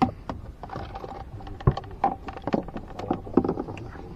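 Irregular clicks, taps and knocks of hands handling gear on a small boat's deck, with one louder knock about a second and a half in.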